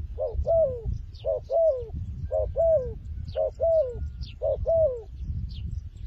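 Spotted dove cooing: five phrases about a second apart, each a short note followed by a longer note that rises and then slides down. The calling stops about a second before the end.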